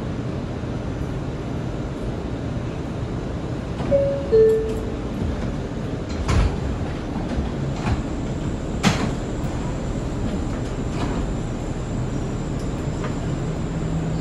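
R179 subway car's two-note door chime, falling in pitch, sounding about four seconds in over a steady low rumble of the car, followed by a heavy thud and a few sharp knocks.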